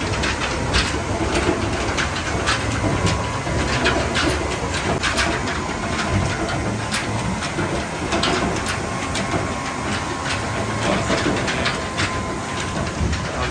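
Water-wheel-driven mill gearing running: shafts and belt pulleys turning with a steady low rumble, irregular clacking knocks, and a faint steady whine.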